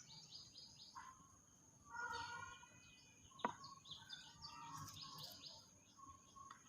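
Wild birds chirping and calling faintly, with quick runs of short notes sliding down in pitch near the start and again about five seconds in, and a louder call about two seconds in. A single sharp click about three and a half seconds in.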